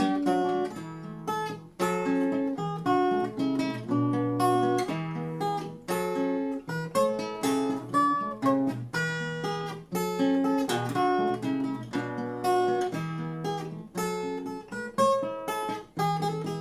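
Solo acoustic guitar playing a finger-picked instrumental tune: a quick run of plucked melody notes over ringing bass notes.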